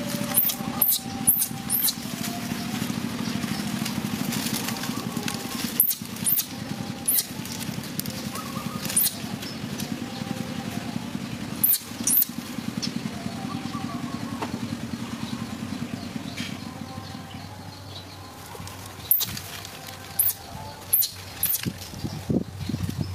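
Dry palm fronds crackling and snapping in sharp cracks as a monkey climbs through them, in clusters near the start, around 6 to 12 seconds and again near the end. Under them runs a steady low hum like a small engine, which fades after about 18 seconds.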